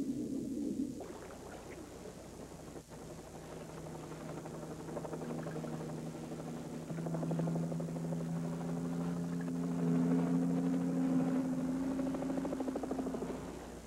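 Helicopter flying, a steady low engine hum with fast rotor chop that grows louder and then drops away near the end. It opens with a muffled low rumble that gives way after about a second.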